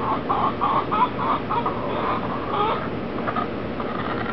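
Backyard chickens clucking: a quick run of short clucks over the first three seconds or so, then quieter calls.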